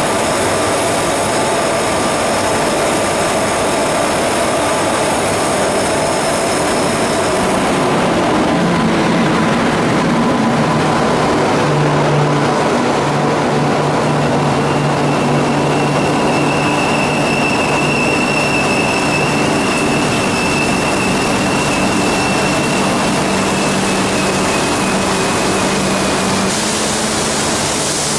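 Heavy rain with an Indian Railways train rolling past close by. A WAP-7 electric locomotive carries a steady high whine for the first seven or eight seconds, and then the coaches and the power (generator) car pass with a low steady hum, a thin high tone riding over it for about ten seconds.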